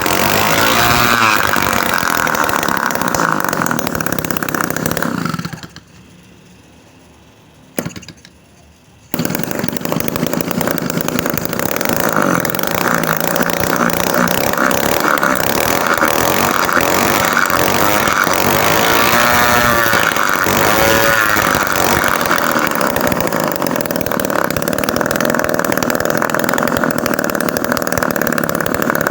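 Homemade mini two-stroke engine, built from a refrigerator compressor, running fast during a test run. About five seconds in the sound drops away for roughly three seconds, with a single click in the gap, then the engine is running again; its pitch swings up and down a few times around two-thirds of the way through.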